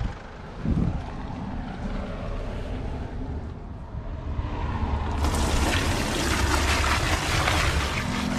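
Well water gushing from a pipe into a plastic bucket, the splashing growing louder from about five seconds in as the bucket fills, over a low rumble.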